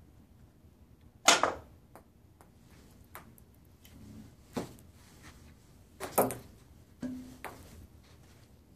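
A loud sharp snap about a second in as the homemade ping pong ball launcher fires, followed by several lighter knocks and clacks over the next few seconds.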